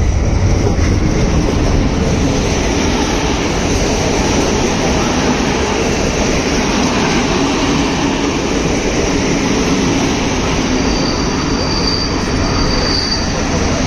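Passenger coaches of a train hauled by a Siemens Vectron electric locomotive rolling past at speed close by: a loud, steady rush and rumble of wheels on rail. A thin high whine comes in near the end.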